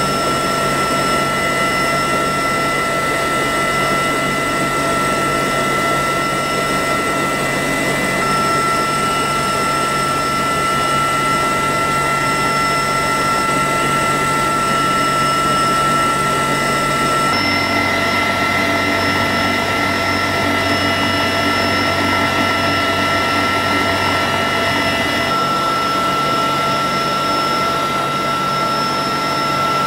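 Steady interior noise of an MH-53E Sea Dragon helicopter in flight: a loud drone with several steady high whining tones from its three turboshaft engines and drive train. The mix of tones changes abruptly twice, about two-thirds of the way through and again near the end.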